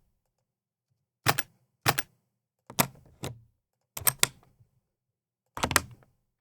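Computer mouse clicking: short sharp clicks, some single and some in quick double-click pairs, spaced about half a second to a second apart.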